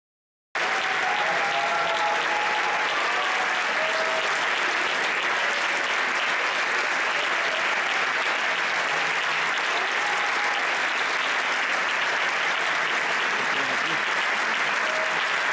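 A large concert audience applauding steadily, a dense even clapping that starts abruptly about half a second in.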